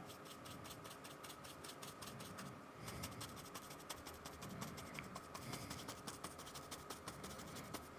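Paintbrush bristles tapping and scratching acrylic paint onto sketchbook paper in quick, faint, repeated dabs.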